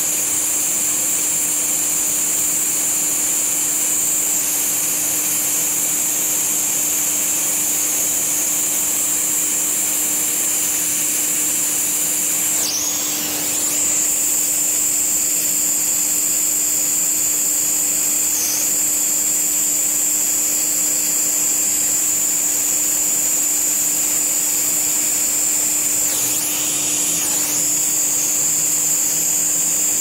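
Brazing torch hissing steadily as it heats the copper joints of a new liquid-line filter drier, with a steady low hum underneath. The hiss shifts briefly twice.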